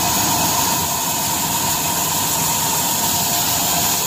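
Large belt-driven band saw for timber running steadily, a constant mechanical whir with a steady high whine.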